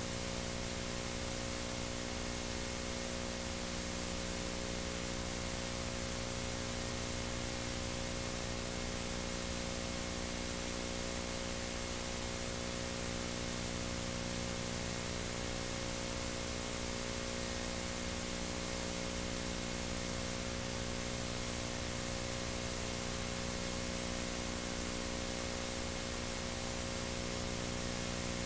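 Steady hiss and buzzing mains hum from the playback and transfer of an old VHS tape, with a faint high whine, unchanging throughout; the tape's soundtrack itself is silent under the title cards.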